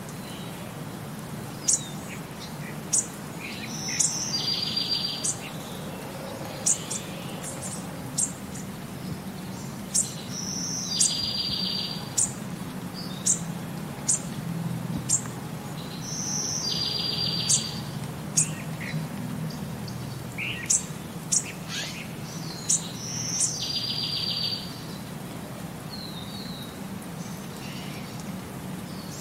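Birdsong: short, high chirps scattered throughout, and a buzzy trill that repeats about every six seconds, over a steady low background noise.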